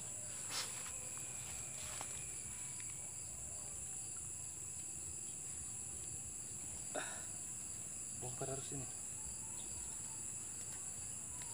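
Steady high-pitched chorus of crickets or similar insects, an even shrill trill that does not let up, with a couple of brief soft knocks and a short murmur near the middle.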